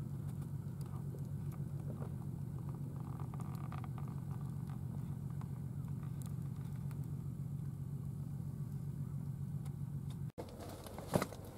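A steady low drone like a distant running engine, with a few faint crackles over it. It breaks off abruptly near the end.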